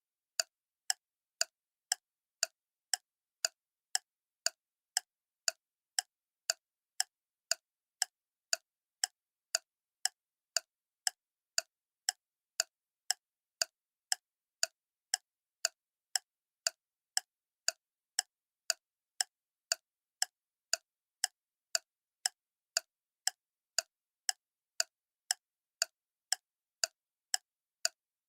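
Clock ticking steadily, about two sharp ticks a second, each tick bright and crisp with nothing in between.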